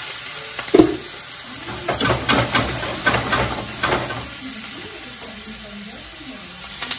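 Wet shrimp being laid into hot oil in a frying pan, sizzling steadily, with a knock a little under a second in. From about two to four seconds in the oil crackles and spits, popping because of the extra water on the shrimp.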